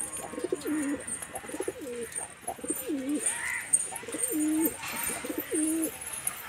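Domestic pigeons cooing over and over, a low call that drops in pitch and then holds, repeating about once a second.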